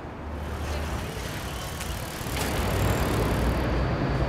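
Street traffic noise with a low rumble, swelling louder about halfway through.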